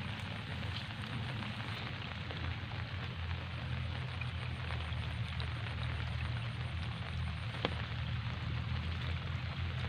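Steady rain hiss with a steady low hum underneath and one sharp click near the end.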